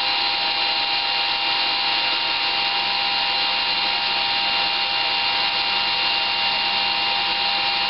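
Brushless electric motor of a ParkZone Super Decathlon RC plane spinning a Master Airscrew 8x6 three-blade propeller at steady part throttle on a bench test: an even rush of prop air with a steady motor whine.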